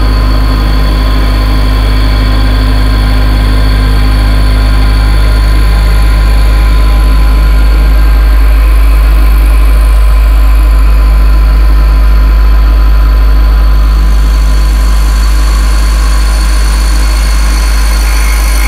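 Okuma CNC mill machining a Nylotron plastic part with an end mill: a loud steady low hum of the running machine, with a few thin steady whining tones above it.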